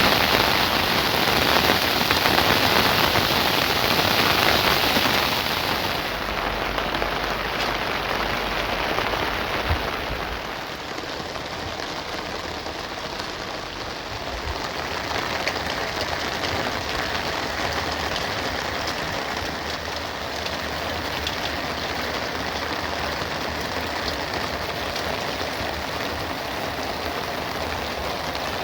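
Heavy rain falling steadily; it is loudest at first, then grows quieter about six seconds in and again about ten seconds in.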